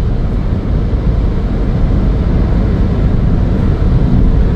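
Ford Fiesta 1.0 EcoBoost three-cylinder turbo car cruising at about 160 km/h with the engine near 3600 rpm, heard as a steady rush of road and wind noise over the engine.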